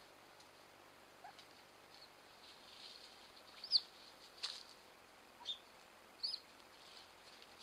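Four faint, short, high-pitched animal chirps about a second apart, starting about halfway through, the first the loudest, over a steady hiss.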